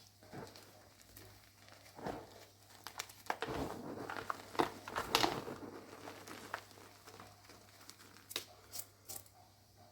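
Crunchy reformed (pasted) gym chalk blocks being crushed, crunching and crackling in irregular bursts, densest and loudest around the middle and thinning out near the end.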